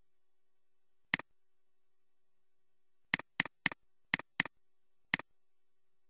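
Seven computer-mouse clicks, each a quick press-and-release double tick: one about a second in, then six more in quick succession from about three seconds in.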